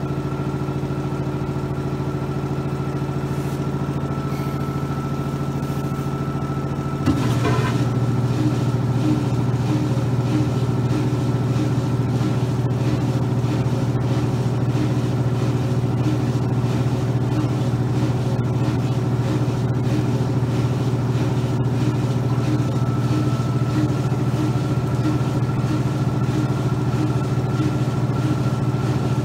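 Maytag dryer running with a steady motor hum as the drum tumbles. About seven seconds in there is a click and the hum steps up louder, with a faint regular beat about twice a second after that.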